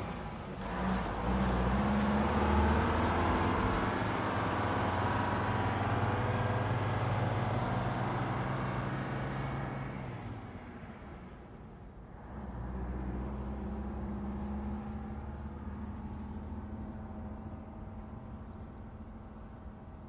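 Old bus's diesel engine running steadily. It dips about ten seconds in, comes back, and slowly fades toward the end.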